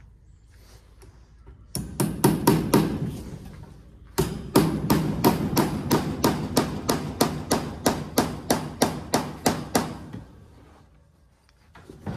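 Claw hammer driving a fastener into a wooden beam: a quick run of blows about two seconds in, a short pause, then a steady run of about four blows a second for some six seconds, and one last knock near the end.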